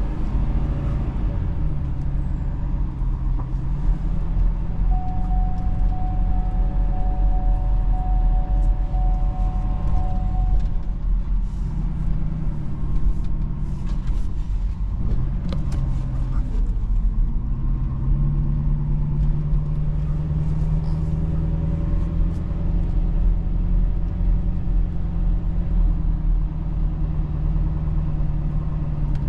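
Ford F-550 Super Duty work truck engine running while driving, its pitch stepping up and down several times as it speeds up and slows. A faint steady whine comes in for a few seconds near the start, and a few short clicks sound midway.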